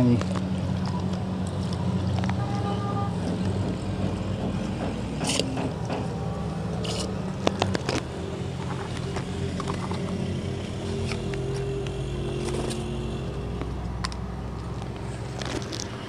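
Steady low mechanical hum of a running motor, with scattered light clicks and knocks, two of them sharper about five and seven seconds in.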